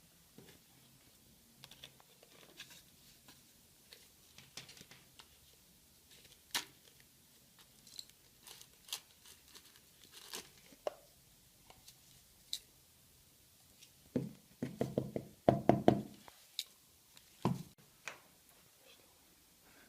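Scattered clicks, taps and knocks of small objects being handled on a work surface, with a louder flurry of knocks and rustling about 14 to 16 seconds in.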